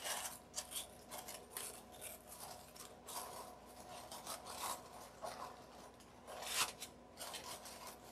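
Faint rustling and crinkling of paper coffee filters being handled and pressed into place, in irregular soft strokes.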